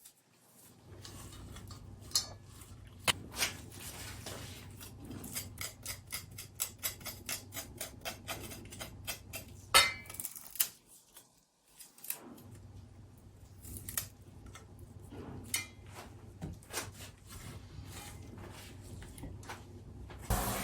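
Shepherd's purse (naengi) being trimmed by hand at the kitchen counter: a run of quick, sharp little clicks and snips, densest about a third of the way in, with a few louder knocks.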